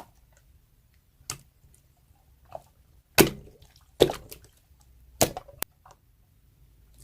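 Slime being pressed and stretched by hand, giving a series of separate sticky pops and clicks, about six of them, the loudest a little past the middle.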